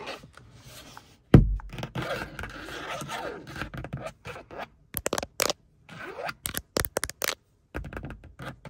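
Long acrylic fingernails scratching and scraping over a car's plastic sun visor. There is one loud thump about a second in, and a run of sharp nail taps near the middle.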